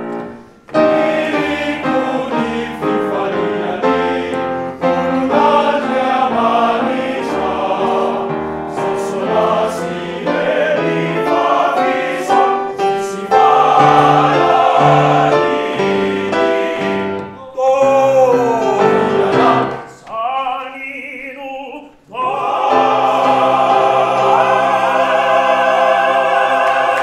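Male choir singing in several parts, deep bass notes under the harmony. About two-thirds through a single voice swoops up and down in pitch over a quieter passage, and the choir then ends on a long, loud held chord.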